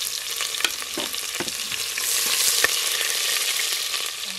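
Sliced onions sizzling loudly in hot oil with whole spices in an aluminium pressure cooker. They are being stirred with a perforated metal ladle that clicks and scrapes against the pot now and then.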